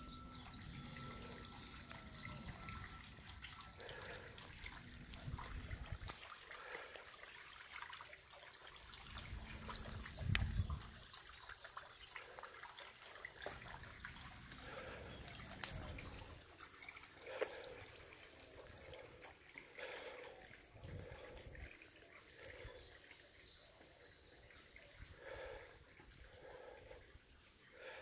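Faint water trickling and dripping from a disappearing fountain, water welling up through a honeycombed limestone boulder and running back down. Low rumbles come and go, loudest about ten seconds in.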